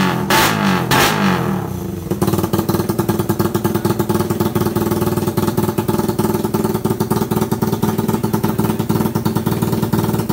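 Motorcycle engine fitted with a dual throttle body, blipped several times so it revs up and falls back, then settling into a steady, fast-pulsing idle that cuts off suddenly near the end.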